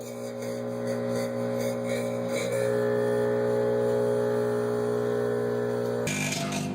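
Microwave oven running with a steady electrical hum, with a lit match inside it to make plasma. The hum builds slightly over the first second, then holds. Near the end it switches abruptly to a different steady hum.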